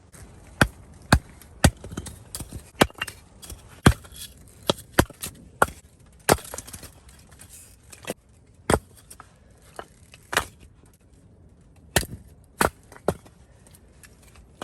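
Firewood being chopped: a run of sharp, irregular blows into wood, about one to two a second.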